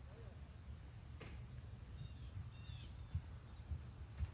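Crickets chirring steadily in one continuous high-pitched band, faint, with a couple of faint bird chirps about two seconds in.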